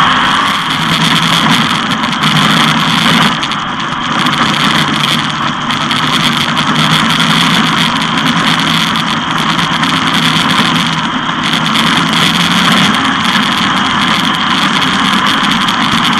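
360 sprint car's V8 engine running at racing speed, loud and steady, with a dense rushing noise over it.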